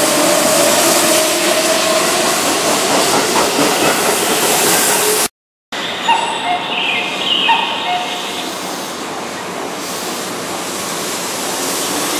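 Keihan electric commuter train running along a station platform, a steady rumble of wheels on rail under a faint motor whine that slowly rises. After a sudden cut about five seconds in, a few knocks of wheels over rail joints, then the sound quietens before another rising motor whine near the end as a train pulls away.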